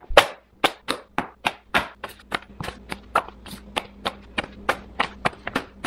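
Paper brochures and folded maps dropped one after another onto a pile on a tile floor, each landing with a sharp slap, about three or four a second.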